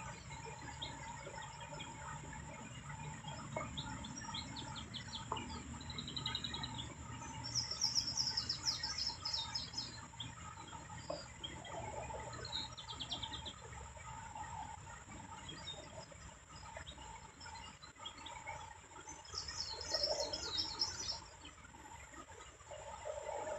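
Small songbirds chirping and trilling in the background, with louder rapid trills about eight and twenty seconds in, over a steady faint hum.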